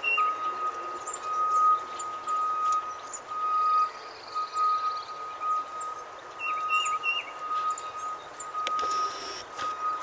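Distant reversing beeper on earthmoving equipment: a high tone pulsing about once a second. Small birds chirp twice.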